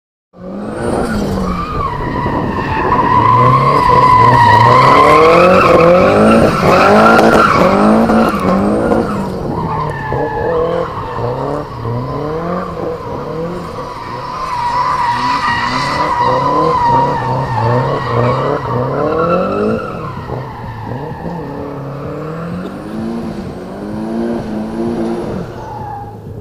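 Car drifting: its engine revs again and again in rising sweeps while the tyres squeal at length, loudest in the first third.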